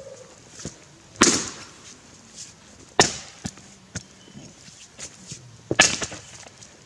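Tasmanian-pattern axe chopping into a grey gum log: three heavy strokes about two seconds apart, with lighter knocks between them.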